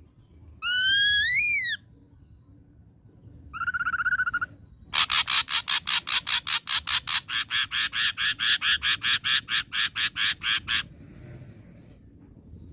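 Ashy drongo singing. It gives a rising whistled note, then a short wavering note, then a long rapid series of harsh chattering notes, about six a second for some six seconds.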